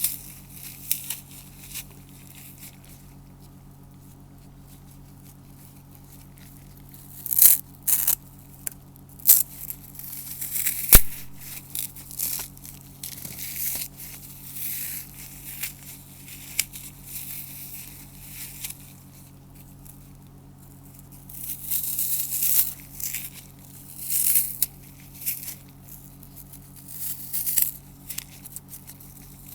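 Dry floral foam crushed by fingers, a crisp crunching and crumbling that comes in irregular bursts, with quieter pauses about 3 to 7 seconds in and again around 20 seconds. A single sharp click about 11 seconds in is the loudest sound.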